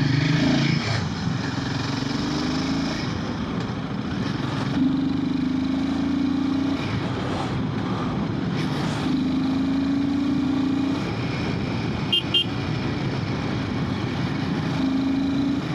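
Royal Enfield Himalayan 450's single-cylinder engine pulling through the gears under wind and road noise, its note rising slowly four times and dropping back between rises as the gears change. A brief double beep, like a horn toot, about twelve seconds in.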